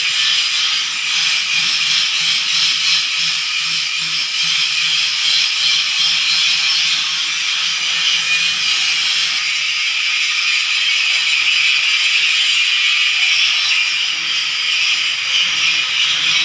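Angle grinder grinding metal: a steady, harsh hiss that runs without a break.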